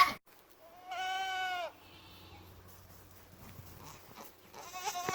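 Buckling (young male goat) bleating: a loud call cuts off at the very start, a single drawn-out bleat comes about a second in, and a wavering bleat starts near the end.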